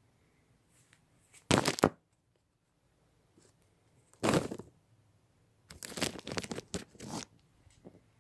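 Handling noise on the phone's microphone: loud rustling, scraping bursts as something rubs against it while the phone is moved about, once about a second and a half in, again after four seconds, then a run of them from about six to seven seconds.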